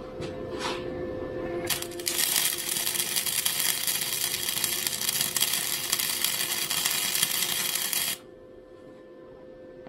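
Electric arc welder laying a weld on steel: the arc strikes about two seconds in, crackles and sputters steadily for about six seconds, then cuts off suddenly.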